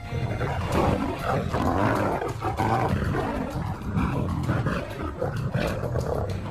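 Lions snarling and growling in a scuffle, with a steady run of irregular rasping snarls: an adult lioness asserting dominance over two young females, more show than real attack.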